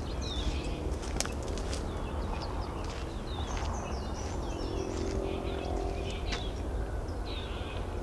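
Small birds chirping and calling repeatedly in high short notes over a steady low rumble, with a couple of sharp clicks.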